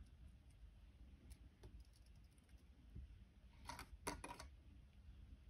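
Near silence with faint clicks of wire and beads being handled as the wire is threaded through the loops of a wire-wrapped cuff; a short cluster of sharper clicks comes about four seconds in.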